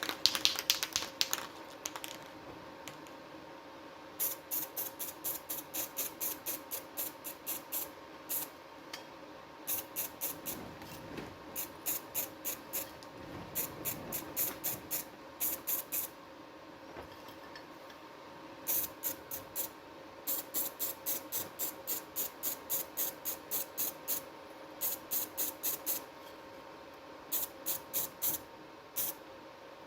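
Quick, regular hissing strokes, about three a second, in runs of several seconds with short pauses between, over a faint steady hum.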